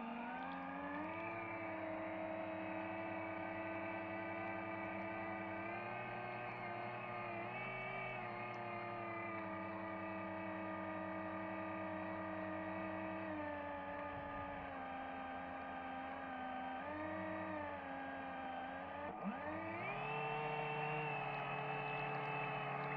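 RC submarine's electric drive motor whining steadily, its pitch stepping up and down with throttle several times, with a sharp rise near the end.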